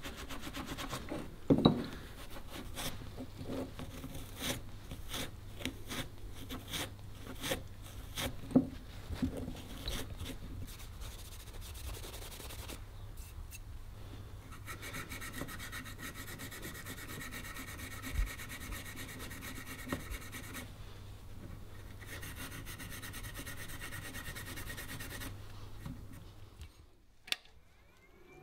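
A hand abrasive pad scrubbing rust off the steel parts of a Stanley Bedrock hand plane, held against a wooden workbench: irregular rubbing strokes with occasional sharp knocks of metal on wood. Near the end the scrubbing stops, and a single click follows.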